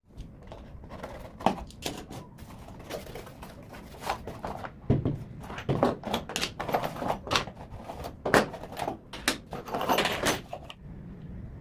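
Handling noise: hard objects being picked up, moved and set down, making a run of irregular knocks and clicks, busiest in the second half.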